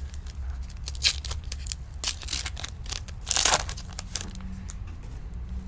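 Foil trading-card pack being torn open and its wrapper crinkled, in a few short rips, the loudest about three and a half seconds in, over a low steady hum.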